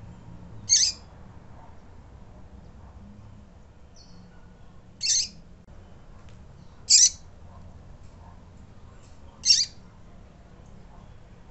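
Female double-collared seedeater (coleiro) giving short, high, sharp calls, four of them spaced a few seconds apart, with a faint shorter note between the first two.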